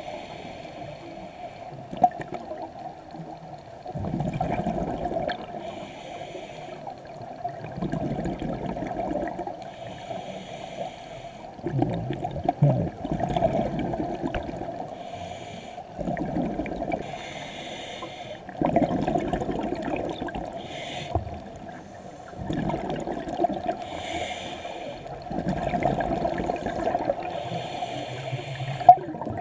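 Scuba diver breathing through a regulator underwater: a short hissing inhale followed by a longer bubbling exhale, in a slow, even rhythm of about one breath every four seconds.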